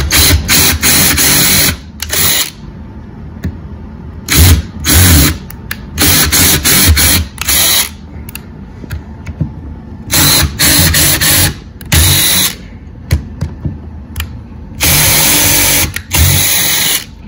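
Cordless drill boring pilot holes into wood, whirring in many short bursts as the trigger is pulled and released, with a longer run of about two seconds near the end.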